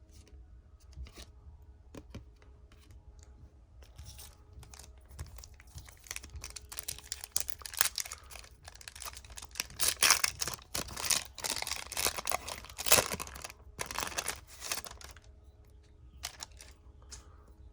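A trading card pack wrapper being torn open and crinkled by hand. The rustling and crackling is loudest and densest in the middle stretch, with quieter handling of the wrapper and cards before and after.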